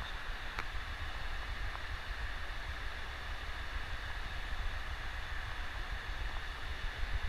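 Steady rushing cockpit noise of a Boeing 747-400 on final approach, mostly airflow over the airframe with engine rumble underneath and a faint high steady hum. A faint click comes about half a second in.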